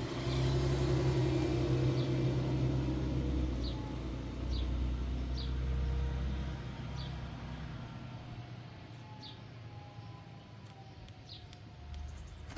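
A motor vehicle's engine rumbling for several seconds, then fading after about seven seconds. A bird chirps a handful of times over it.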